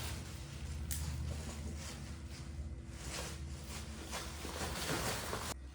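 Rustling and handling noises as vegetables are taken out and set down, several soft rustles in a row over a steady low hum.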